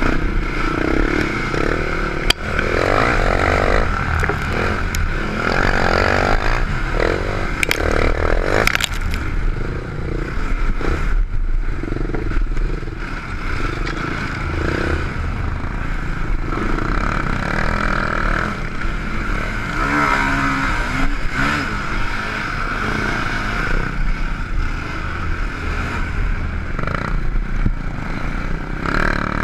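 Can-Am DS450 quad's single-cylinder four-stroke engine running hard, its pitch rising and falling with the throttle over rough dirt. A few sharp knocks and clatter from the machine hitting bumps, the clearest about two seconds in and again around eight seconds.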